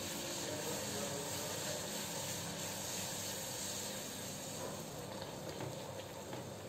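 A club kachori deep-frying in hot oil in a kadai, the oil sizzling steadily around it.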